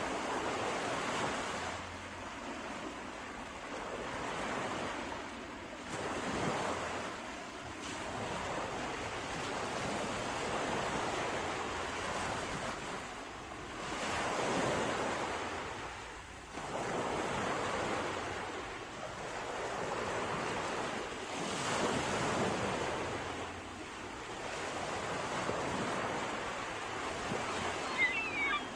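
Sea waves breaking and washing up a shore, the surf swelling and falling back in slow surges every few seconds.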